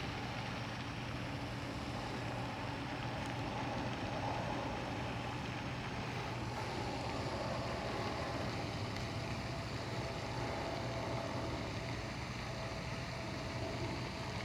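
Steady low hum of a distant engine under a faint even hiss, unchanging throughout.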